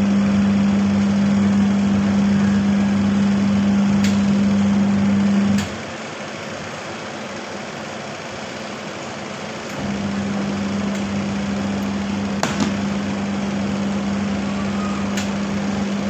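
Semi-automatic washing machine motor running with a steady low hum. It cuts out about five and a half seconds in and starts again about four seconds later, on the test run after the spin timer was replaced.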